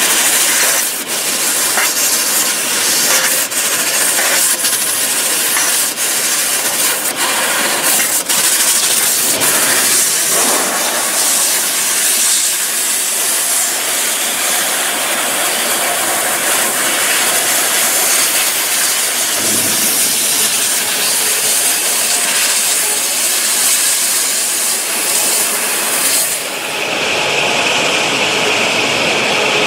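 A 1 kW fiber laser cutter cutting thin sheet steel, with a loud, steady hiss from the cutting head's nozzle and several sharp clicks in the first ten seconds. Near the end the hiss thins and a steadier, higher tone remains.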